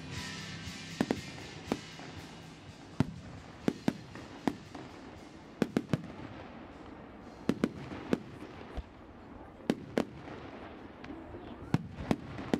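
Fireworks display: sharp bangs of fireworks bursting overhead, coming irregularly, about one or two a second.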